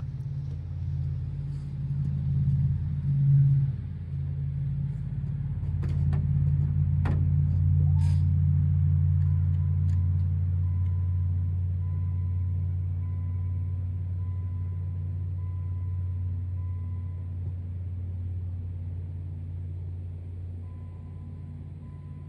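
A cold 24-valve Cummins 5.9 L inline-six diesel running at a steady idle just after a cold start in freezing weather, with a swell in engine level about two to four seconds in. A few sharp clicks sound around six to eight seconds in.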